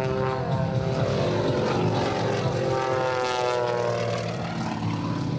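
Aerobatic biplane's piston engine and propeller running hard overhead. The drone slides down in pitch during the first second and a half, then climbs again in the middle as engine and propeller speed change through the manoeuvre.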